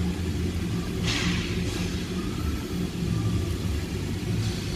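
Steady low mechanical hum and rumble, like a running engine or machine in the background, with a few brief soft swishes over it.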